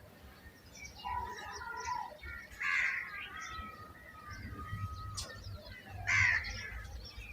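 Birds calling: two loud, harsh squawks, about two and a half and six seconds in, with thinner whistled notes between them.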